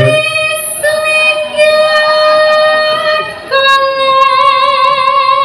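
A woman's voice singing a Javanese song in long, drawn-out notes. About three and a half seconds in she steps down to a lower note and holds it with a wavering vibrato.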